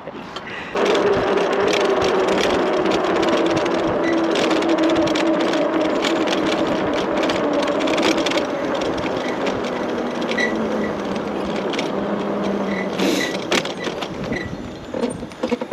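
Electric bike motor whining under way over a rush of wind and tyre noise. The whine's pitch falls slowly and steadily as the bike slows, and the sound fades near the end.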